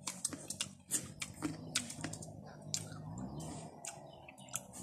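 Crisp, irregular clicks and crunches of someone eating unripe green mango, biting and chewing the hard slices and picking pieces from a coconut-shell bowl.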